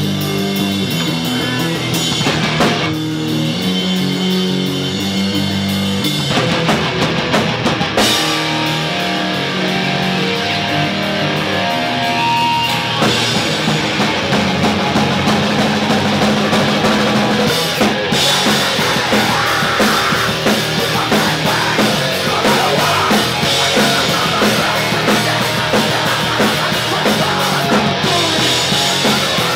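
Live hardcore punk band playing loud: drum kit with cymbals and distorted electric guitar. Stop-start riffing in the first half gives way to a denser, continuous full-band section from about halfway.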